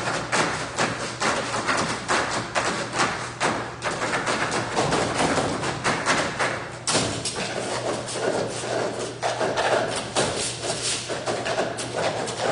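Several performers drumming a fast rhythm on a tabletop with their hands, a dense run of overlapping taps and thumps.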